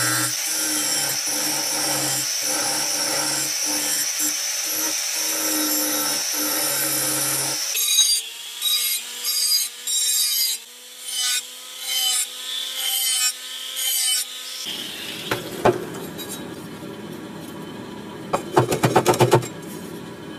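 An angle grinder with a cut-off disc runs steadily, cutting through the steel of a cleaver blade. About seven seconds in it stops, and a small high-speed rotary tool grinds the blade in short on-off bursts. Near the end, after a quieter stretch, there is a quick run of sharp clicks.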